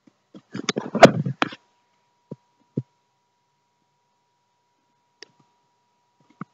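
Handling noise from a handheld camera being swung around: a cluster of rustles and knocks about a second in, the loudest a sharp knock, then two short thumps and a couple of faint clicks. A faint steady whine runs underneath after the first cluster.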